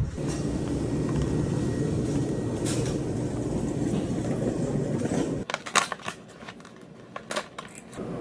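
Steady background rumble of an indoor space for about five seconds. It then drops suddenly to a quieter room with a series of sharp crinkles and clicks of something being handled.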